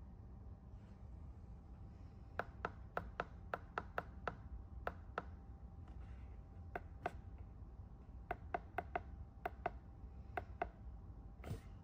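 A series of light, sharp clicks or taps in quick irregular runs, beginning about two seconds in, over a faint steady low background hum.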